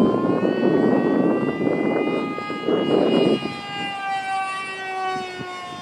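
Skyfun RC plane's Turnigy 2836-3700kv brushless helicopter motor and propeller on 3S, a high whine in fast flight that slides slowly lower in pitch. A rushing noise sits under it for the first half.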